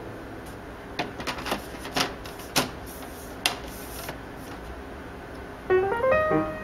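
Light knocks and clicks of a metal double access door panel being handled and set into the opening of a hollow plastic box, a handful of sharp taps over a few seconds. Acoustic guitar music starts near the end.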